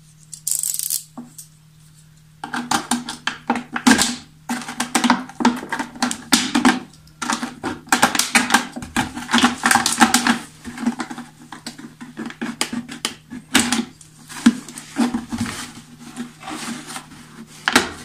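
Thin plastic water jug crinkling and clicking as it is handled and a metal tool is worked through its freshly melted holes to clear out the loose plastic bits. The crackling comes in quick, irregular runs, brief at first and then almost constant from about two and a half seconds in.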